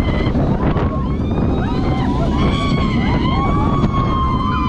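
Kondaa roller coaster train running through the circuit at night: wind buffeting the microphone over a steady rumble from the train on the track, with riders' wavering screams rising and falling above it.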